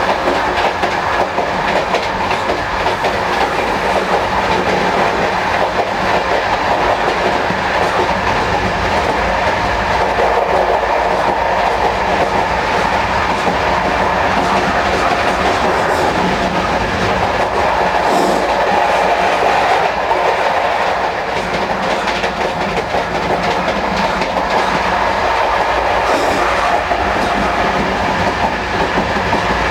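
Running noise of a moving Corail intercity passenger coach, heard from inside the gangway connection between coaches. It is a steady, loud rumble with constant rattling and clatter.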